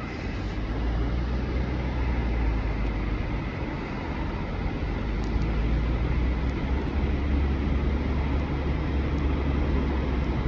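A vehicle running: a steady low rumble with road noise, growing a little louder about a second in.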